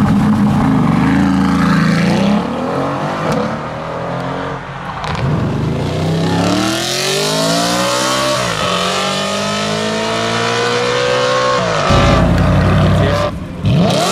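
Performance car engine accelerating hard, its pitch climbing in long sweeps and dropping back sharply twice as it shifts up. A loud low rumble comes near the end.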